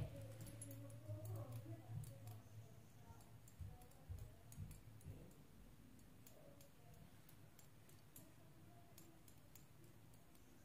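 Near silence: room tone with faint, scattered light clicks.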